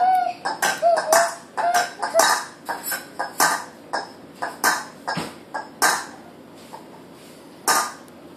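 A toddler making short, high sing-song 'ah' sounds for the first second or so, then a string of short breathy puffs and rubbing noises close to the phone's microphone, coming thick and fast at first and thinning out.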